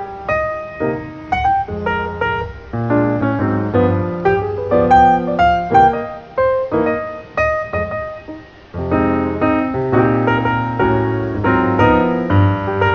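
Background piano music: a piano playing a melody over low chords, each note struck and ringing out. It eases off briefly about eight seconds in, then picks up again.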